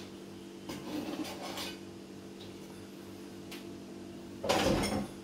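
Cutting boards and a knife being handled on a kitchen counter. There are a few short scrapes and knocks in the first two seconds and a louder scrape near the end, over a steady low appliance hum.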